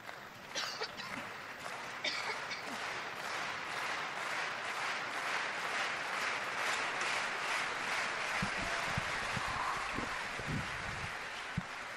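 Crowd applauding a won point, the clapping holding steady for several seconds and easing off toward the end. A few low thumps come near the end.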